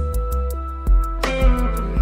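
Background music: a gentle instrumental with held notes over a deep bass and a light, even ticking beat.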